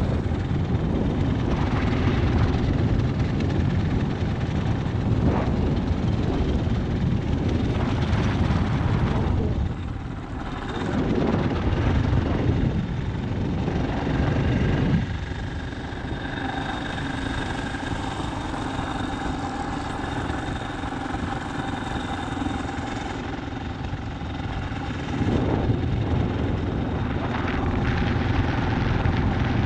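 Motorcycle running at speed with heavy wind buffeting the microphone, a dense fluttering rush. It eases off between about 15 and 25 seconds in, when a thin steady whine comes through, then grows louder again.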